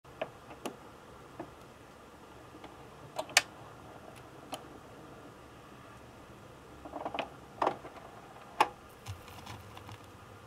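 Vinyl record crackle from an Audio-Technica turntable's stylus riding the groove: scattered, irregular pops and clicks, a few of them louder, over a faint low hum.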